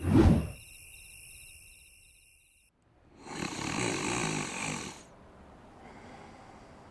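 A brief, loud burst of noise right at the start, then a person snoring: one loud snore lasting about two seconds, beginning about three seconds in.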